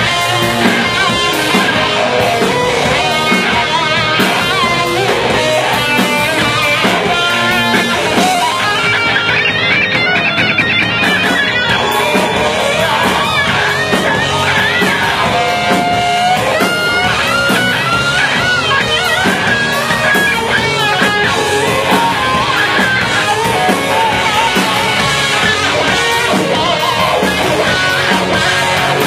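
A rock band playing live: a loud electric guitar lead with bent, gliding notes over the full band.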